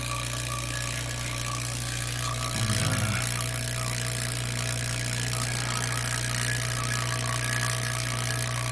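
HVAC vacuum pump running steadily while it evacuates the refrigerator's sealed system, a constant low hum with a thin steady whine above it.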